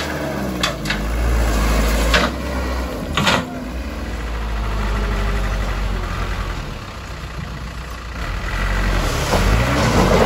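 Mitsubishi Fuso dump truck's diesel engine running steadily with its tipper bed raised, and a few sharp knocks in the first few seconds.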